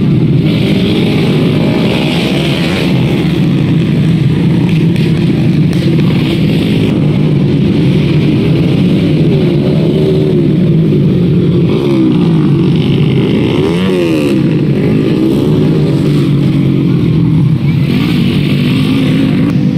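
Several racing motorcycles revving on a dirt grasstrack course, their engine notes rising and falling as riders accelerate and back off, often overlapping and crossing in pitch.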